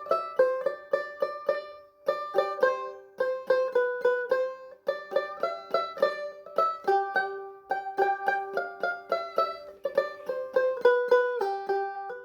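Background music: a plucked string instrument, mandolin- or banjo-like, picking a quick melody of bright notes.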